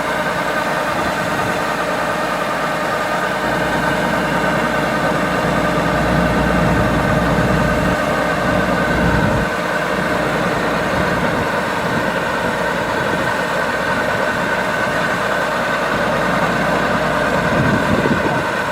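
Diesel engine of a Kubota DC-105X combine harvester running steadily. Its low rumble grows heavier for several seconds, then eases back.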